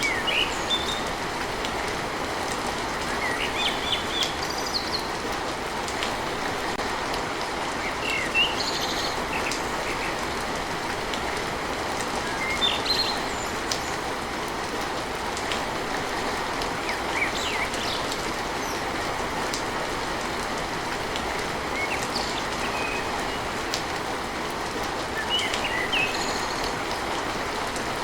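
Steady rain falling on a tin roof, with birds chirping briefly every few seconds.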